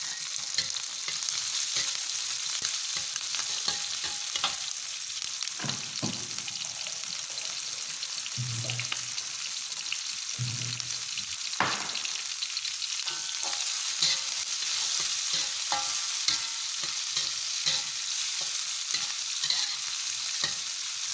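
Chilies, shallots and garlic frying in a little oil, with a steady sizzle, while a utensil scrapes and taps against the pan as they are stirred.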